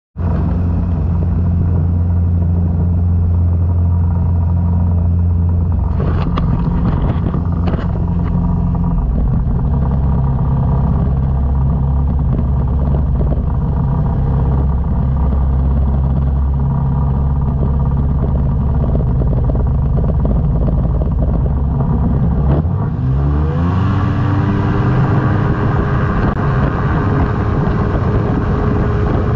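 Microlight trike's engine and pusher propeller running steadily at low revs. About 23 seconds in the revs climb and then hold higher as the throttle is opened. A few short clicks come six to eight seconds in.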